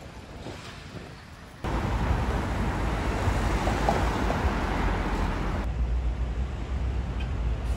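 Outdoor street noise: traffic and a heavy wind rumble on the microphone. The noise cuts in suddenly and loud about a second and a half in, after a quieter stretch.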